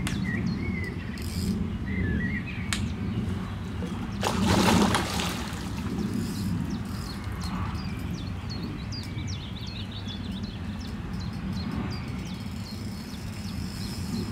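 Carp feeding at the water's surface close to the bank: about four seconds in, a splash lasting about a second as a fish swirls. Behind it a steady low rumble and small birds chirping.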